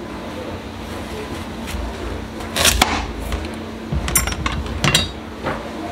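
Chef's knife cutting through a small watermelon on a plastic cutting board: sharp knocks and cracks as the rind splits and the blade meets the board, a pair about halfway through and a few more a second or so later.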